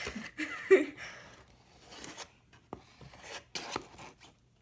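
Flour being scooped and scraped with a half-cup measuring cup: soft rubbing and scraping, with a few light clicks of the cup against the bowl or bag about three seconds in. A brief vocal sound comes in the first second.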